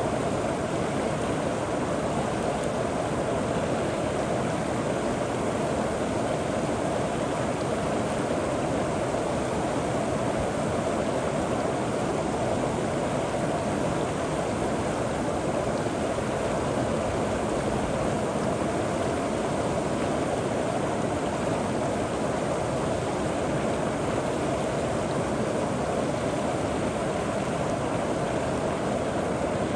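River water flowing over rocks and pebbles, a steady gurgling rush without a break.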